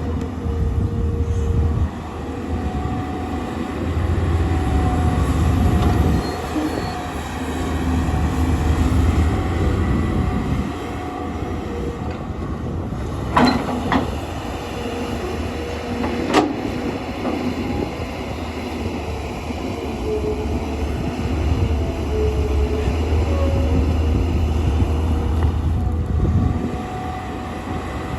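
Hydraulic excavator working: its diesel engine rumbles and swells under load every few seconds with a steady hydraulic whine over it, and there are a few sharp metallic clanks around the middle.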